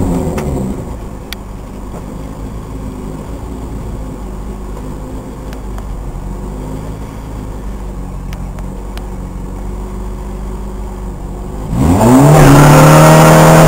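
2.0-litre four-cylinder car engine dropping back to a steady idle in the first second or so, then, about 12 s in, revved sharply and held at high revs, as when staging at a drag-strip start line.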